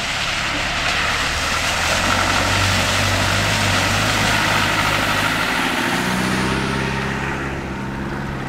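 Land Rover Discovery engine running as the SUV drives through a deep muddy puddle, water splashing and rushing around its wheels. After about six seconds the splashing fades and the steady engine note stands out more clearly.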